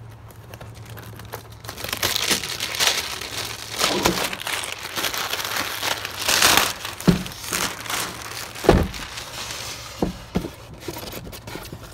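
Cellophane wrapping being torn and crumpled off a cardboard box, crinkling and rustling in uneven bursts from about two seconds in. A few dull thumps come in the second half.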